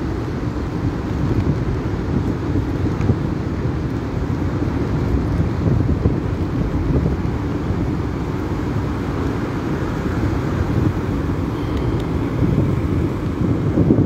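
Strong sea wind of about 15 knots buffeting a phone's microphone in a steady low rumble, with breaking surf washing in underneath.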